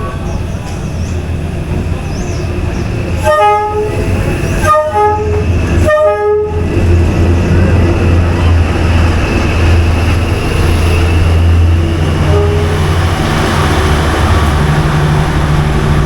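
Diesel train passing at close range: the locomotive sounds its horn in three short blasts about three, four and a half and six seconds in. A steady low engine rumble runs underneath and grows louder as it goes by.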